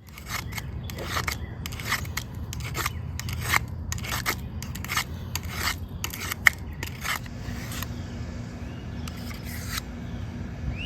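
Utility knife blade cutting shavings from a 2x6 board: quick repeated scraping strokes, two or three a second, that thin out after about seven seconds.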